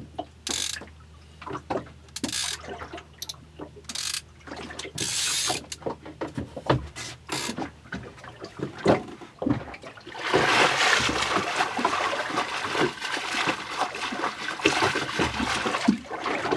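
Water splashing hard at the side of a small boat from about ten seconds in, as a chum bag hung over the side is worked in the water. Before that come scattered knocks and clicks of handling on board.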